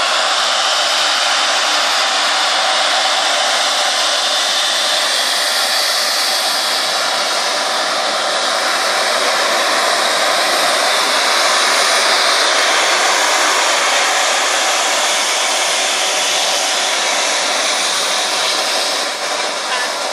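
Boeing 777-200 jet engines at high power for take-off, with the jet blast rushing over the microphone: a loud, steady hiss that eases slightly near the end.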